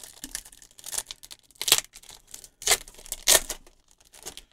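Foil Pokémon card booster pack being torn open and crinkled, with several sharp rips.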